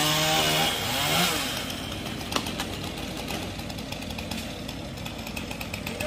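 Chainsaw running: a wavering engine note that rises about a second in, then gives way to a rough, steady noise with scattered sharp cracks.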